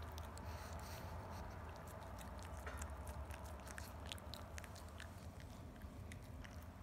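A Pekingese gnawing and licking a stick-shaped dog chew: faint, irregular wet clicks and crunches, over a steady low hum.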